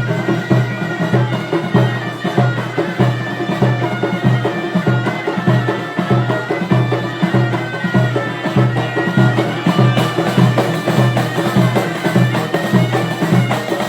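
Loud Moroccan traditional wedding music: a reedy wind instrument plays sustained melody lines over a steady, regular drumbeat.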